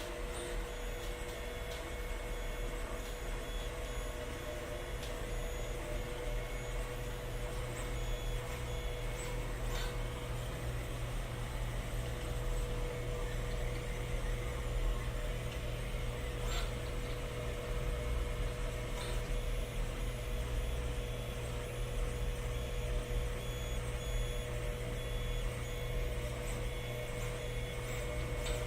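Monoprice MP i3 Mini 3D printer running: a steady hum with one steady mid-pitched tone, and faint short ticks here and there.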